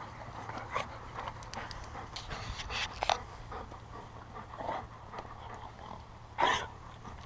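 A pack of dogs playing together: panting and scuffling, with scattered short sharp sounds and one louder short bark about six and a half seconds in.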